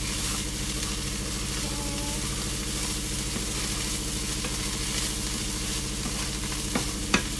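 Fried rice sizzling in a hot non-stick wok while a wooden spatula stirs and turns it, a steady frying hiss with two sharper scrapes of the spatula near the end. A steady low hum runs underneath.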